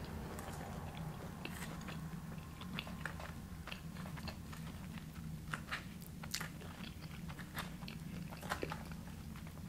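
Close-miked chewing of a mouthful of chicken salad, with scattered small crisp crunches and wet clicks of the mouth. A steady low hum lies underneath.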